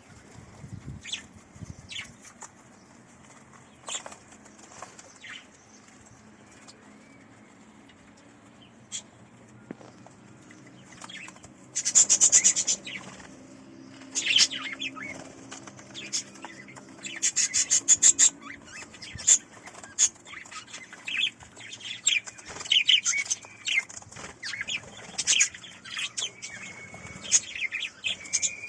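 Budgerigars flapping and fluttering their wings while bathing in vegetables, with short chirps. The fluttering comes in scattered bursts at first and grows busier and louder in the second half.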